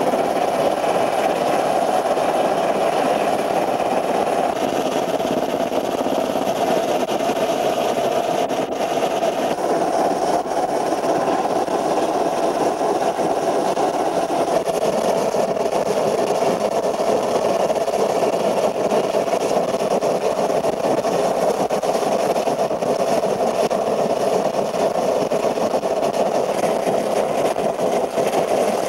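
Steady drone of a helicopter's engine and rotor, heard from inside the cabin.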